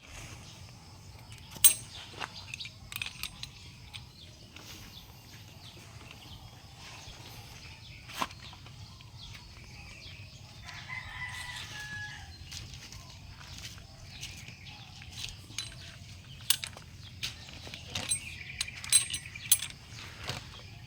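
Scattered sharp clicks and knocks, single or in small clusters, over a low steady hum, with a short pitched call or squeak about eleven seconds in.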